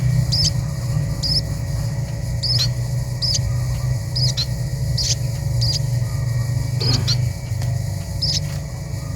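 Pipit teki birds chirping: about a dozen short, high chirps that each flick upward, coming irregularly every half-second to second, over a steady low rumble.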